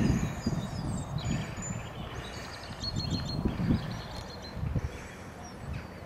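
Wind buffeting the microphone in low gusts, strongest at first and easing after about a second, with small birds chirping and trilling in short high phrases.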